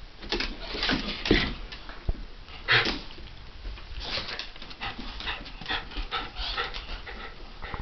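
Two small dogs, a Havanese and a Jack Russell terrier, play-wrestling on a hardwood floor: a run of short scuffling, huffing and panting sounds, the loudest about three seconds in, then quicker, denser ones toward the end.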